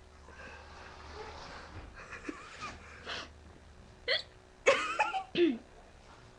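A girl hiccuping: a few short, sharp hiccups about four to five and a half seconds in, the middle one the loudest and voiced.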